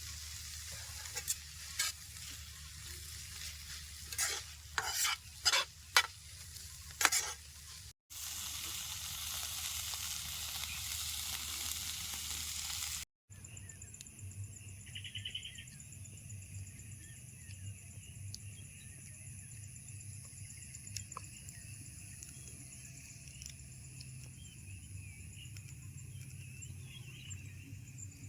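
A vegetable curry frying in a pan over a wood fire. A spatula clicks and scrapes against the pan several times over a steady sizzle, then there is a louder, even sizzle. After a cut it gives way to a quieter steady hiss with faint high steady tones.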